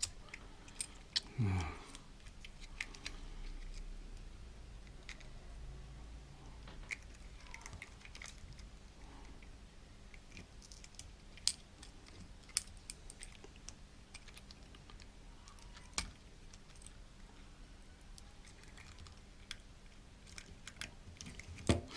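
Sparse small clicks and taps of small hand tools on the plastic parts of a GoPro Hero 4 Silver as its adhesive-held front LCD screen is worked loose, spaced several seconds apart.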